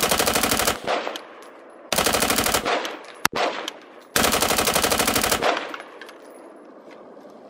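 AR-15-style semi-automatic rifle bump-fired through a bump stock, going off in three rapid strings of shots at about thirteen a second, like automatic fire, with a single shot between the second and third string and echo after each. The strings break off because bump firing only keeps going while the finger sits just right in the trigger guard.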